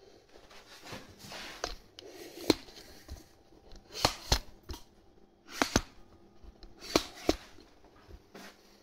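Handling noise from the recording camera as it is picked up and moved about: rustling of a knitted sleeve against it and several sharp clicks and knocks, the loudest about two and a half seconds in.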